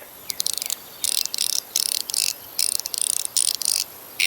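Mechanical fidget slider being slid back and forth: short bursts of rapid, high-pitched clicking and rattling, about two a second, with a few separate clicks at first.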